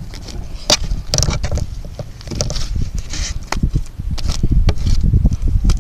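Sticky, still-watery glitter slime being kneaded by hand, giving irregular wet squelches and small clicking pops, over a steady low rumble.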